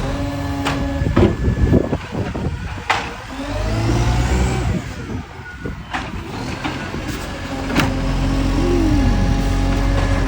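Engine with an exhaust leak running, with scattered sharp clicks. Its revs rise and fall once around the middle and build again toward the end.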